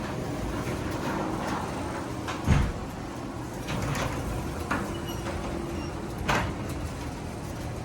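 Sectional garage door running along its track, a steady rumble with a couple of sharp clunks about two and a half seconds and six seconds in. The door moves without the rewelded roller bracket popping loose.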